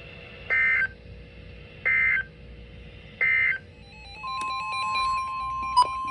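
Three short bursts of EAS SAME data tones, each under half a second and about 1.3 seconds apart: the end-of-message code that closes an emergency alert. From about four seconds in, a steady electronic tone begins, with a stepping pattern of beeps over it.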